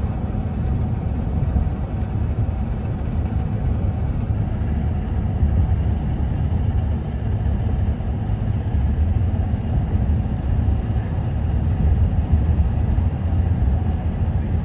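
Steady low rumble of road and wind noise from a car pacing the CP 2816 Royal Hudson steam locomotive at speed, with the train's running noise mixed in.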